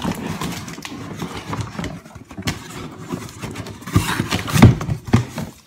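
Cardboard scraping and rustling as a boot box is pulled out of a tight-fitting cardboard shipping box, then a few knocks and thumps about four to five seconds in as the shipping box is lifted away and the boot box settles on the table.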